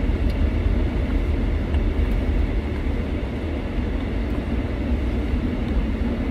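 Steady low rumble inside a car's cabin from the running vehicle.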